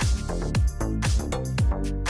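Background pop music with a steady electronic beat and sustained synth chords.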